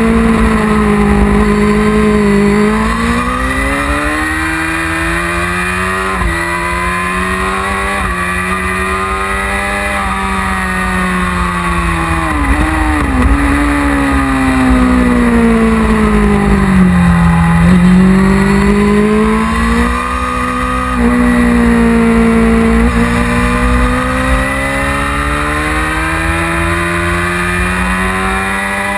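1999 Yamaha R6's inline-four engine heard from on board at track speed. Its pitch falls and rises again several times through the stretch, with a quick wavering dip about twelve seconds in.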